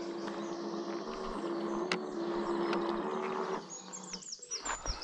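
Radio-controlled bait boat's electric motors running with a steady hum as the boat comes back in, cutting out about three and a half seconds in. Small birds chirp, most clearly near the end.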